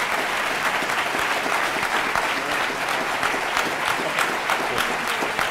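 Audience applause from a large seated crowd: many hands clapping steadily, fading slightly toward the end.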